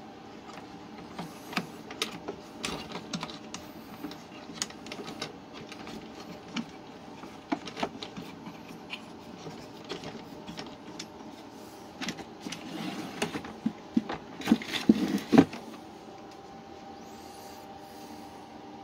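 Homemade scroll saw on its wooden pull-out frame being handled and pushed into its cabinet on metal drawer slides: irregular clicks, knocks and rattles of wood and metal, with a flurry of louder knocks a few seconds before the end, over a faint steady hum.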